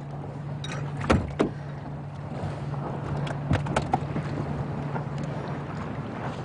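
Small fishing boat's engine running with a steady low hum, broken by several sharp knocks about a second in and again a few seconds later.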